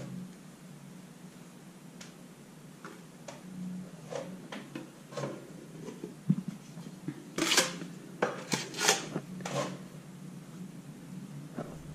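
A scattered series of light knocks, clicks and short scraping strokes from hand tools and hard objects being handled, thickest and loudest a little past the middle.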